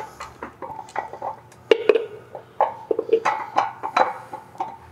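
Metal-on-metal clinks and knocks as a Porsche 993 camshaft is worked into its cam housing: a string of irregular clicks, some with a brief ring.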